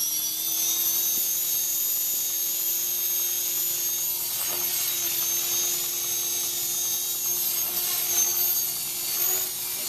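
Align T-Rex 450 Pro electric RC helicopter in flight: a steady rotor drone with a high-pitched electric motor whine, its pitch rising slightly in the first second.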